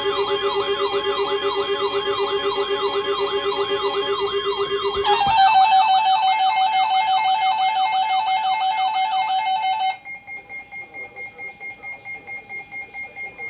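Electronic emergency alert tones: a fast warbling siren-like sweep over a steady pulsing tone. At about five seconds the steady tone changes to a higher pulsing note. At about ten seconds the warble cuts off and a quieter pulsing tone carries on.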